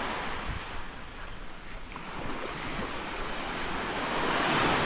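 Small Gulf of Mexico waves breaking and washing up the sand. The surf hiss swells near the start, eases off, then builds again to its loudest just before the end.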